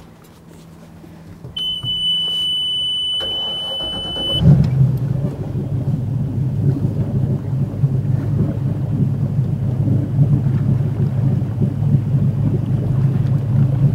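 A boat's motor being started: a steady high electronic beep sounds for about three seconds and the starter cranks briefly. The engine catches about four seconds in and then runs steadily at low speed.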